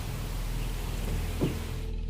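A steady low rumbling drone under a hiss. The hiss cuts off suddenly near the end, and there is a short faint knock about a second and a half in.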